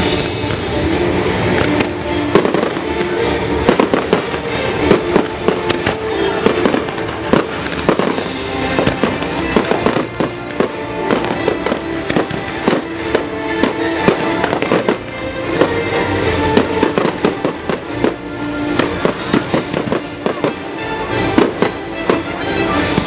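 Fireworks bursting and crackling in quick, irregular succession over loud orchestral show music played on loudspeakers.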